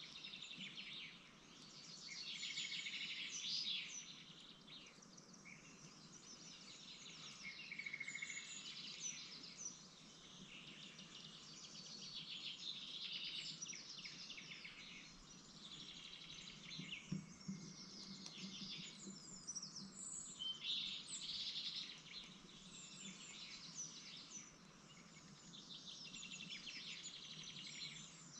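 Small birds chirping, high and rapid, in bouts of a few seconds that swell and fade, over a faint steady background hum.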